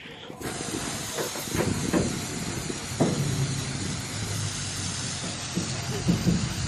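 Jet of water spraying onto a concrete driveway: a steady hiss that starts about half a second in, with an uneven low rumble and a few knocks underneath.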